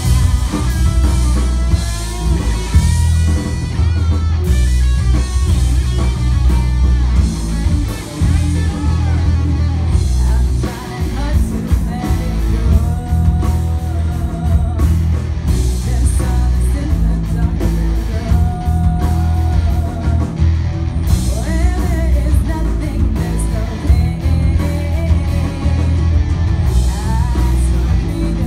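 Live rock band playing: distorted electric guitars, bass guitar and drum kit under a lead singer's voice.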